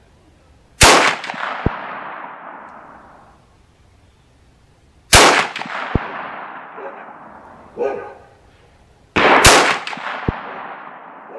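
Marlin Model 1895 lever-action rifle in .45-70 Government firing three shots about four seconds apart, each with a long echoing tail. Between the shots come quieter clacks of the lever being worked.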